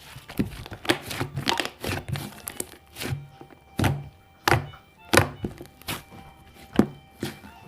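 A series of sharp, irregularly spaced taps and thunks, about a dozen, over faint background music.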